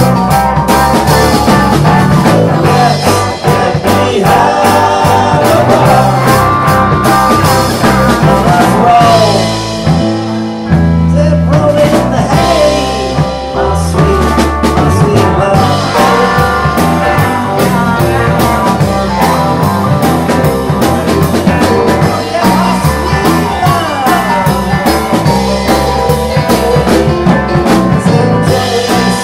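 Live rock-and-roll band playing: electric guitars, stage piano and drum kit. The band thins out briefly about ten seconds in, then comes back in full.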